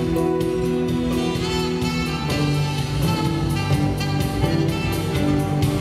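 Live band playing a song's instrumental introduction: held chords with saxophone over drums and cymbal strikes.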